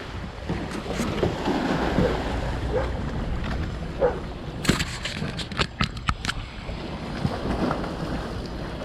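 Wind rumbling on the microphone over water sloshing and splashing around boats, with a quick run of sharp knocks about five to six seconds in.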